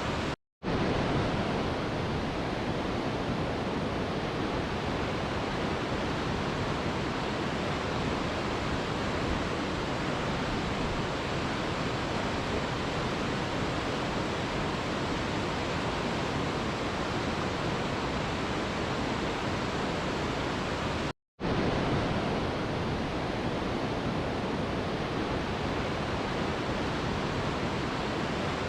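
Waterfall rushing steadily, an even full-range roar of falling water. It drops to silence for an instant twice, once about half a second in and again about 21 seconds in.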